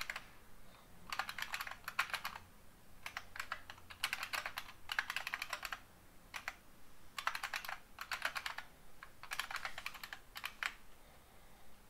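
Computer keyboard typing in short bursts of rapid keystrokes with brief pauses between them, stopping near the end.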